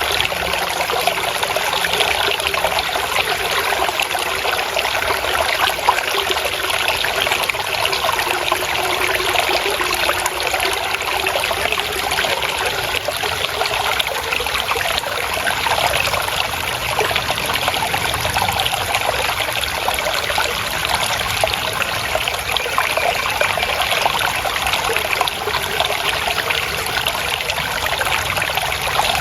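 Water trickling and babbling steadily in a continuous flow, with no breaks or changes.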